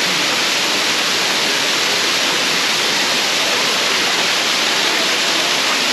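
Waterfall rushing steadily: a loud, even wash of falling water.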